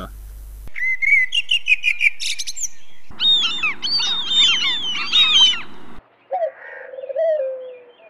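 Birdsong in three spliced stretches: quick high chirps, then a dense chorus of many birds chirping over each other, then after a short break a lower, falling call near the end.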